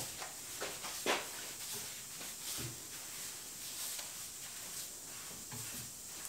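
Bristle brushes swishing faintly as tung oil is brushed onto carved wood, with a sharp tap about a second in.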